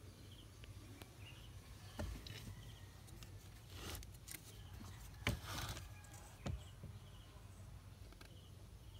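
Faint handling clicks and knocks, three sharper ones about two, five and six and a half seconds in, with short rustles between them, over a low steady hum and faint repeated chirps.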